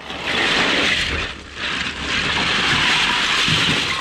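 A big bag of plastic Duplo bricks being tipped out onto a carpet, the bricks clattering and tumbling out in two long pours with a short break about a second in.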